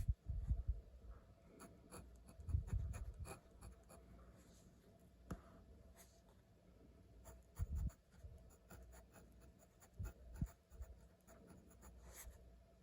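Pen writing on paper: a run of short scratches and taps as the strokes of the characters are written. A few louder low rumbles come and go among them, the strongest about half a second in and again around three seconds.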